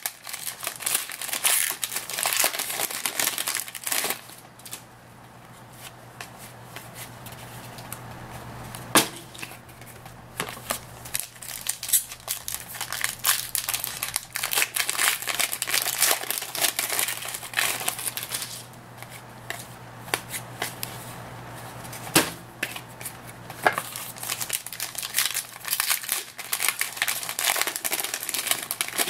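Foil wrapper of a 2011-12 Panini Contenders hockey card pack crinkling and tearing as it is opened by hand, in repeated bursts, with a couple of sharp clicks along the way.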